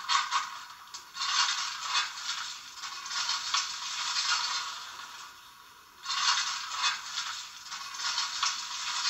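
Steam sounds from the sound decoder of a Märklin/Trix BR 42 model steam locomotive, played through its small onboard speaker: thin, hissing chuffs with no bass, swelling and fading in uneven bursts.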